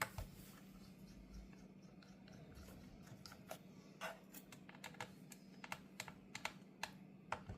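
Scattered light clicks and taps of small screws being worked loose and plastic housing parts being handled on a car radio display unit, coming more often in the second half, over a faint steady hum.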